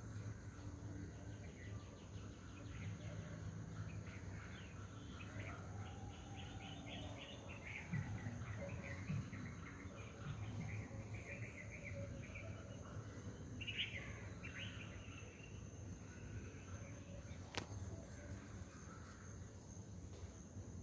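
Faint, high animal chirps in quick clusters over a steady low hum, with one sharp click late on.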